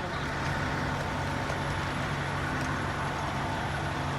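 A large motor vehicle's engine running steadily, a constant hum with no change in pitch.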